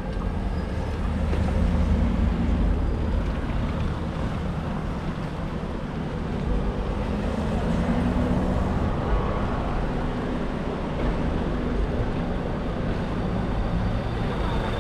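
Motor traffic: a vehicle engine running with a low, slightly wavering hum over steady road noise.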